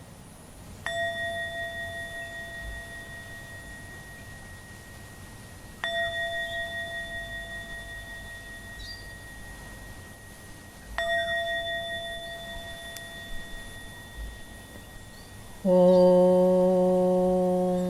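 A bell struck three times, about five seconds apart, each strike ringing clear and fading slowly. Near the end a louder, steady low drone with many overtones begins.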